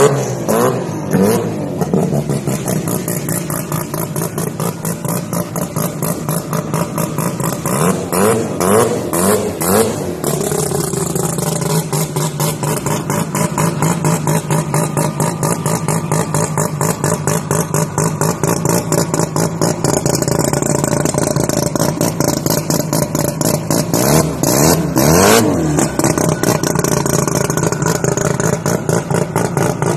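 Mazda RX-3's rotary engine idling with an uneven, pulsing beat, blipped with rising and falling revs near the start, again about eight to ten seconds in, and once more about twenty-four seconds in.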